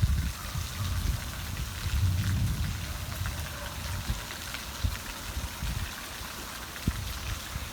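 Heavy rain falling in a steady hiss, with an uneven low rumble underneath.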